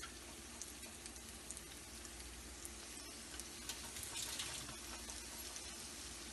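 Samosas deep-frying in hot oil in a frying pan: a faint, steady sizzle with small crackles and pops, swelling briefly about four seconds in.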